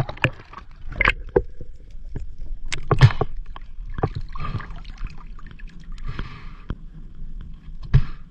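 Sharp, loud cracks and knocks heard underwater at irregular intervals, the loudest about three seconds in and another near the end, over a steady wash of water noise. The diver likens them to bomb blasts.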